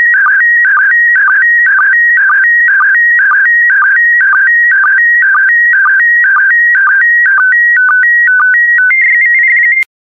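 PD120 slow-scan television (SSTV) signal: high-pitched electronic tones jumping between two pitches, repeating about twice a second as each pair of picture lines is sent. The pattern changes in the last couple of seconds, settles into one steady tone and cuts off suddenly near the end, as the image transmission finishes.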